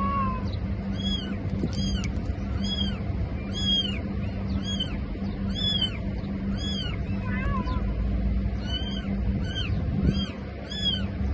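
Newborn kitten mewing, a run of short, very high-pitched cries that rise and fall, roughly one a second, over a steady low hum.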